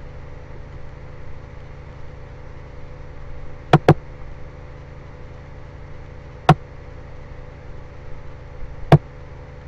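Computer mouse clicking: a quick double click about four seconds in, then two single clicks a few seconds apart, over a steady low hum.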